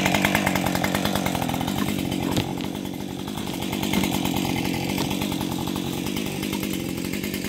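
Husqvarna 550 XP G chainsaw's two-stroke engine running steadily at idle, with no revving.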